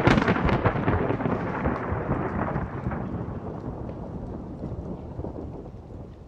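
Thunderclap sound effect: a sudden loud crack, then a crackling rumble that slowly fades away.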